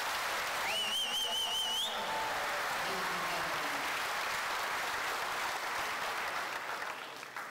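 Audience applauding steadily, with a warbling whistle for about a second near the start.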